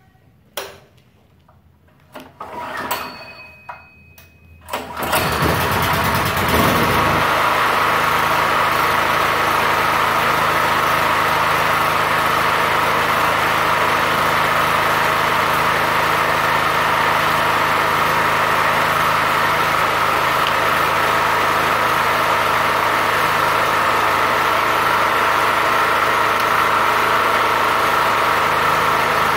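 Multipro GG-3900 petrol generator being started: a few short knocks, then about five seconds in the engine cranks, catches and settles into a steady run.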